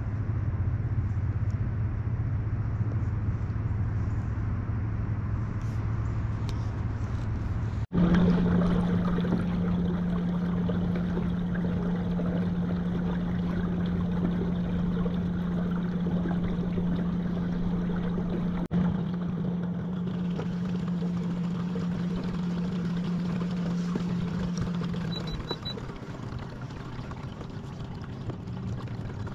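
Fishing kayak's electric motor humming steadily while underway, with water washing past the hull. The hum steps up in pitch about 8 seconds in and fades out near the end.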